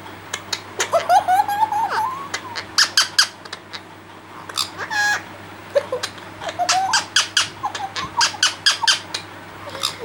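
Rose-ringed parakeet giving rapid strings of short, sharp squeaks and clicks, with a longer rising call early on and a brief held call about halfway through.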